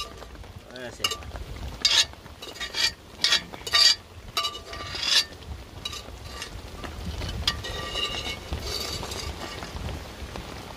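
Metal spoon clinking and scraping against metal pots several times in the first five seconds as seasoning is scooped into a crab pot, over a steady sizzling hiss from the pot steaming on a wood fire.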